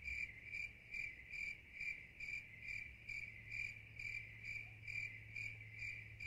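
A cricket chirping in an even rhythm, about two and a half short chirps a second, faint, over a steady low hum.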